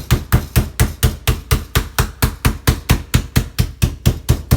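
Meat mallet pounding raw chicken breast through plastic wrap, flattening it: an even run of sharp blows, about four a second.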